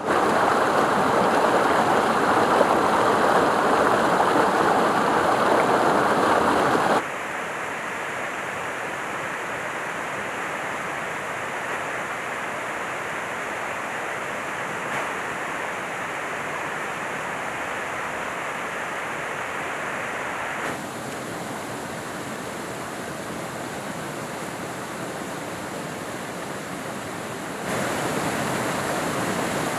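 Steady noise of rushing water, in several shots cut together: loudest for the first seven seconds, then quieter, changing again at about 21 seconds and growing louder near the end.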